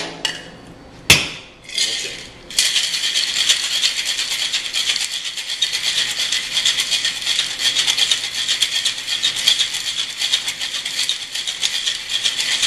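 Ice clinking into a cocktail mixing glass, a single sharp knock about a second in, then ice rattling hard and steadily in a cocktail shaker as the drink is shaken for about ten seconds.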